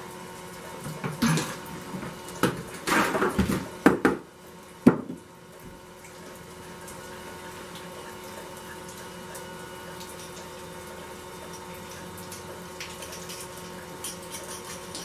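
Green sand mold being broken apart around a freshly poured aluminum bronze casting: a run of crumbling and knocking noises with two sharp thumps about four and five seconds in. After that it is quiet but for a few faint ticks near the end as the casting is pried out of the sand with a small hand tool.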